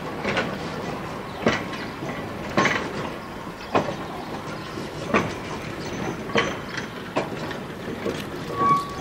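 Rail vehicle running on track: sharp clicks about once a second, as the wheels pass over rail joints, over a steady running rumble, with a brief squeal near the end.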